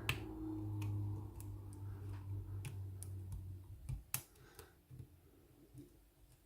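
Light metallic ticks of a short hook and tension tool working the pins of a Ruko pin-tumbler lock cylinder, scattered and irregular, about a dozen in all. A low steady hum runs under the first four seconds.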